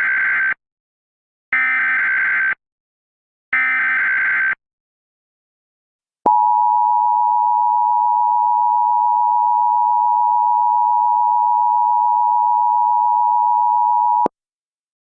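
Emergency Alert System tones. First come three SAME header data bursts, each about a second long with a second's gap between, encoding the alert's digital header. Then the EAS two-tone attention signal (853 Hz and 960 Hz sounded together) is held steady for about eight seconds and cuts off sharply, announcing that an emergency voice message follows.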